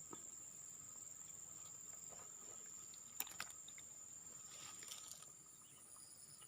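Faint, steady, high-pitched drone of insects, with a short click about three seconds in and a few soft rustles near five seconds.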